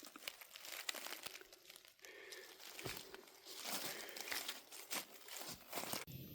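Irregular crinkling and crunching rustle with many small clicks, in uneven bursts, cutting off abruptly about six seconds in.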